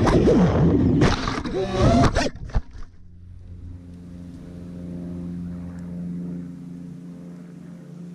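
Racing quadcopter motors whining and shifting in pitch as the quad crashes into palm fronds, with sharp clatters of the propellers striking the leaves; the motors cut out about three seconds in. A faint steady hum follows.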